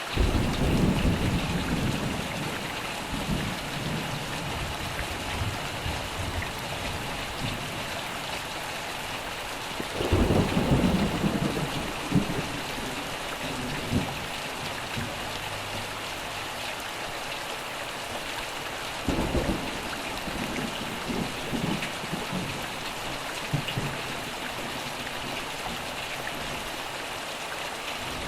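Steady rain with rolling thunder. Three low rumbles come, one right at the start, one about ten seconds in and one about nineteen seconds in, each fading over a few seconds.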